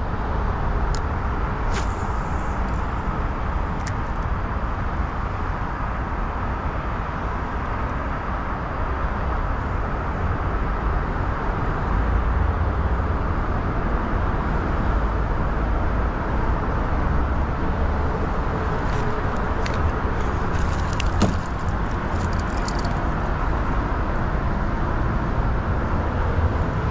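Steady rumble of road traffic crossing the highway bridge overhead, with a few light clicks about two seconds in and again around twenty seconds in.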